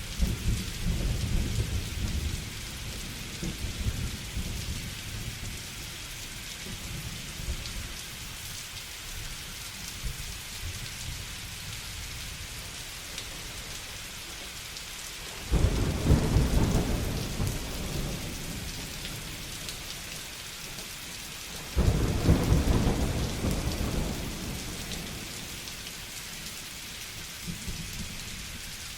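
Steady rain with thunder. A low rumble fades over the first few seconds. Two thunderclaps then break in suddenly, about halfway through and again some six seconds later, each rumbling away over a few seconds.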